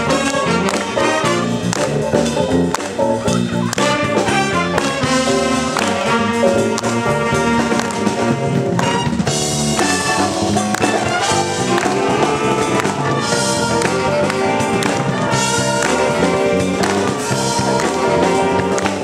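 Big band playing a funky jazz tune, with saxophones, trumpets and trombones in full ensemble over drums.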